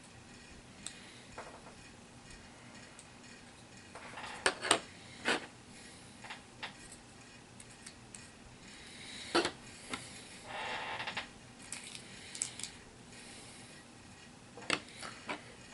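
Scattered light clicks and knocks of plastic miniatures and their packaging being handled on a table, with a brief rustle a little past the middle.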